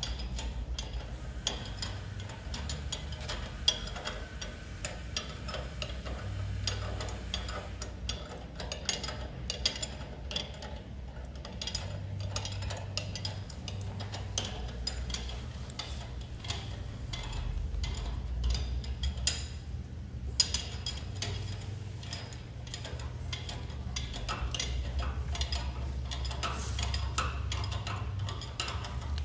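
Hand tools working on steel suspension hardware: a ratchet wrench clicking as bolts are run down, with scattered clinks and knocks of metal parts being handled, over a low steady hum.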